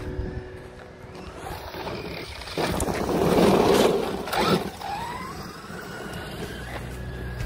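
The brushless electric motor of a JLB Cheetah radio-controlled truck whines and its tyres run over loose gravel as it drives close past. The sound is loudest about three to four seconds in, and the whine rises in pitch just after as the truck speeds away.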